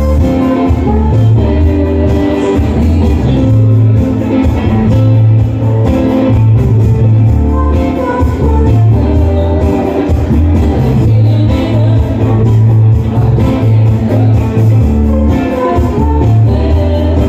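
Live band playing, heard loud and bass-heavy: electric bass, drums, electric keyboards and guitar, with singing over the top.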